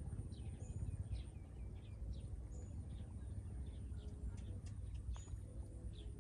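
Small birds chirping in short, quick repeated notes over a low, steady rumble.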